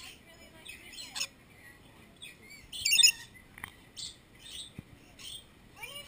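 Rainbow lorikeets giving short, shrill, screechy chirps in scattered bursts, the loudest a quick cluster of calls about three seconds in.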